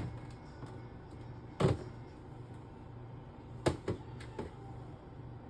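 A few clunks and knocks of groceries being set into and moved around a refrigerator: one about two seconds in, then a quick pair near the middle.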